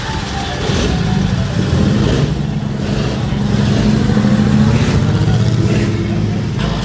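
Vintage car engine running as the car rolls slowly past, a steady, fast-pulsing low exhaust note.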